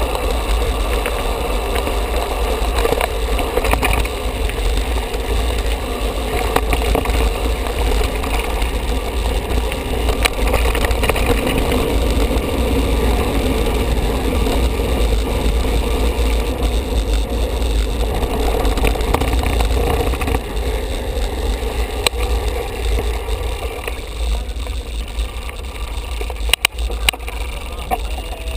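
Wind buffeting the microphone of a handlebar-mounted camera on a moving mountain bike, over the rumble and rattle of its knobby tyres on a gravel track and then on cobblestones, with scattered sharp knocks from bumps.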